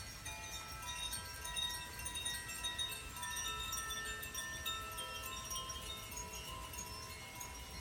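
Tuned wind chimes played by hand: many clear bell-like notes ringing and overlapping, with new notes sounding every second or so and each one sustaining.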